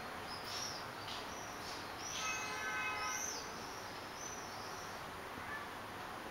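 Swifts screaming: several short, high, thin calls that arch up and down in pitch, in quick succession, the loudest about two to three seconds in, over steady background noise.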